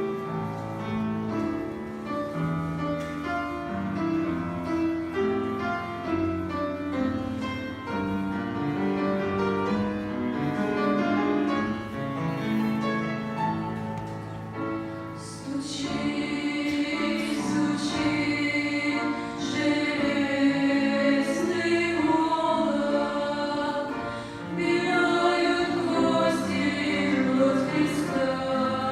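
Church choir singing a hymn in several voice parts, growing fuller and brighter about halfway through.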